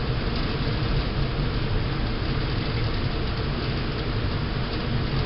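Steady low rumble and hiss of ventilation fans, with no gunshots.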